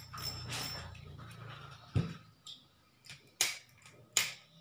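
Seahawk Lite Pro 800 spinning reel being handled: a dull knock about two seconds in, then two sharp clicks near the end.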